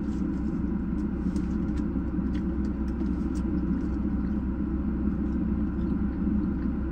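Steady low rumble of a parked car's idling engine, heard from inside the cabin, with faint clicks of someone chewing food.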